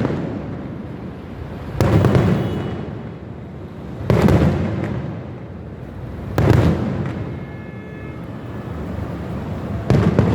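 Aerial fireworks bursting, one loud bang about every two and a half seconds, four in all, each echoing away in a long rumble and some trailing a crackle, over a steady rumble of more distant bursts.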